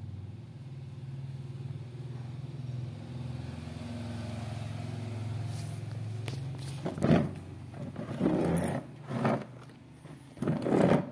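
A low, steady motor-like hum through the first half. It gives way to a few loud, short rubbing and bumping noises from the phone being handled close against a plastic stool and the floor.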